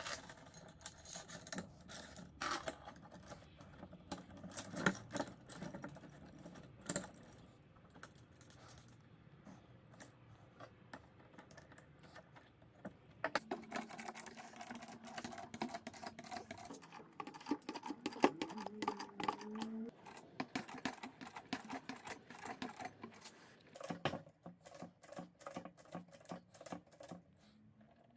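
Steel chains clinking and rattling against a hydraulic bottle jack and a steel bar. In the second half comes a long run of quick metal clicks as the jack is pumped to bend the bar around a round die, with a faint drawn-out squeak under the load near the middle.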